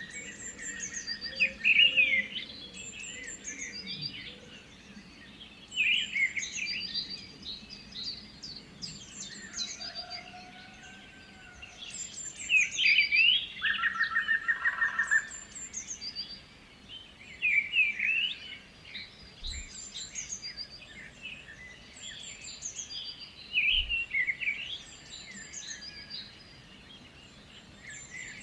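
Birds singing and chirping, with short high song phrases repeating every few seconds and a brief rapid trill about halfway through.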